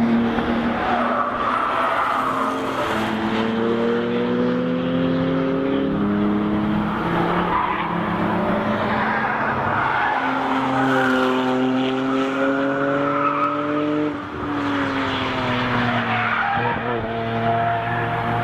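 Several cars passing one after another through a corner on a race track, their engines rising and falling in pitch as they brake, shift and accelerate, with tyre squeal mixed in.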